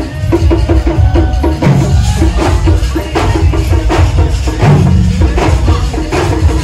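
Music with loud, fast rhythmic drumming and percussion.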